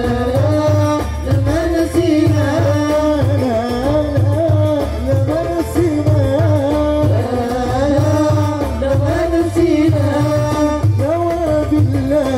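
Live gambus ensemble playing sholawat music: oud with hand drums beating a steady rhythm under a melody line that bends up and down.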